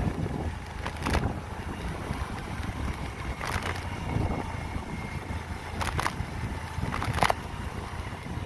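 Low rumble of a moving vehicle on the road with wind noise on the microphone, broken by four short sharp knocks or rattles spread through.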